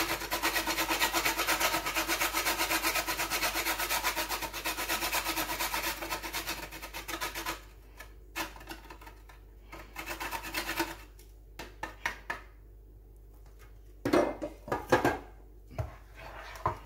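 Whole nutmeg being grated on a small metal grater: fast, rhythmic rasping strokes, about five a second, that stop about seven and a half seconds in. A few scattered clicks and knocks follow, with the loudest pair near the end.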